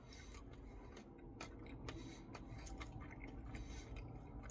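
Faint eating sounds: scattered small mouth clicks and chewing of ice cream, irregular and quiet.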